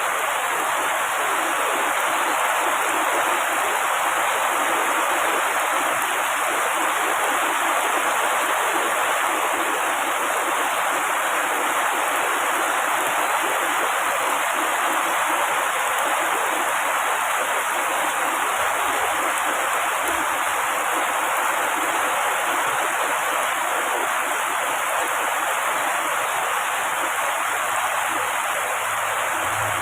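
Heavy rain falling on tree foliage, a steady, dense hiss that does not change.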